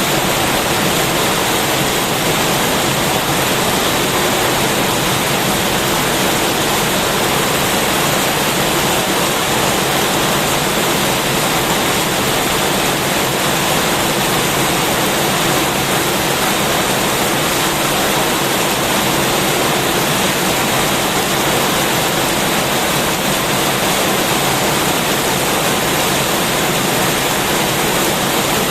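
Heavy rain pouring steadily, a dense, even hiss with no breaks.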